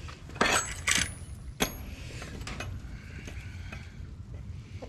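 A few sharp metallic clinks and rattles in the first two seconds, one followed by a brief high ringing: a chicken-coop gate's metal latch and chain being handled.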